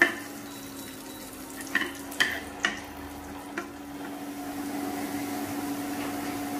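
Chopped onion sizzling as it fries in hot oil in a kadai, being browned. A spatula knocks against the pan about five times in the first four seconds, and the sizzle swells a little after that over a low steady hum.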